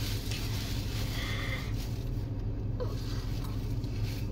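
Steady low hum and rumble of a car, heard from inside the cabin.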